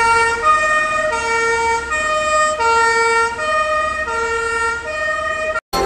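German fire engine's two-tone siren, a low tone and a higher tone alternating evenly, each held a little over half a second. It cuts off suddenly near the end as music begins.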